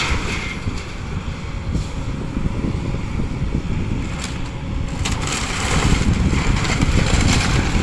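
House demolition by excavator: a heavy rumble of the machine and breaking structure, with a few sharp cracks of timber and debris, about two, four and five seconds in.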